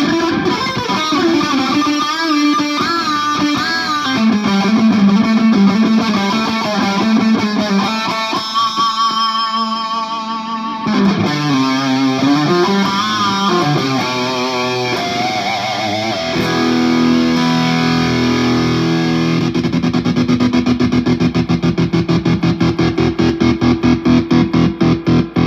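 PRS Singlecut electric guitar played through a Marshall JCM 2000 amp with distortion: single-note lead lines with bends and vibrato, then, from about two thirds of the way in, a held chord picked in fast, even repeats.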